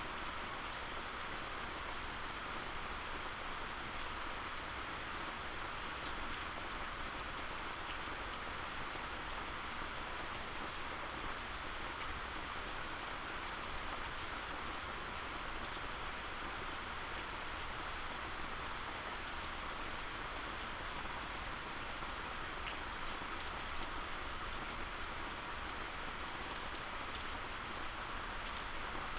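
Steady rain falling, an even hiss with occasional single drops ticking.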